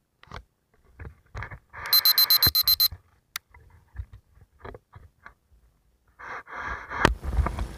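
Electronic beeping: a quick run of about eight high beeps lasting about a second, starting about two seconds in, with a shorter run of beeps just after six seconds. Around them, scattered splashes of water along an inflatable hull, turning into a steady rush of wind and water from about seven seconds in.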